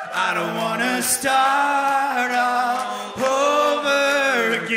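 Live song: a male voice holding two long sung notes of about two seconds each over a steady backing.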